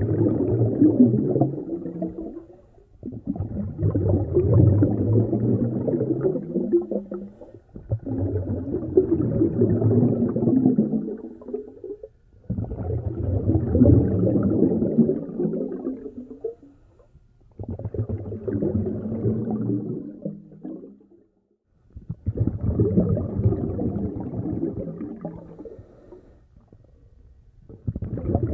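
A snorkeller breathing through a snorkel, heard muffled from underwater: a rushing, gurgling breath about every four and a half seconds, with short pauses between.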